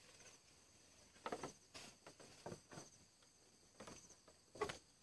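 Insects trilling steadily in a high, pulsing chorus, with scattered soft rustles and crunches, the loudest about a second in and near the end.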